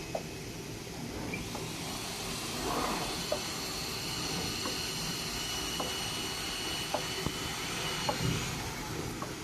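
CNC digital knife cutting machine running while cutting fabric: a steady hiss with a thin high whine from its drives, which comes in after about a second and a half and fades near the end, and a few scattered light clicks.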